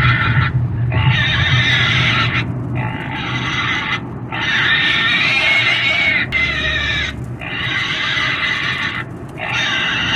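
Pig squealing in a run of long, loud screams, each lasting one to three seconds with short breaks between.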